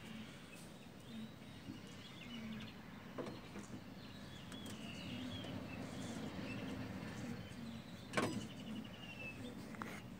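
Faint evening outdoor ambience: scattered high chirping calls over a low steady hum, with a single knock about eight seconds in.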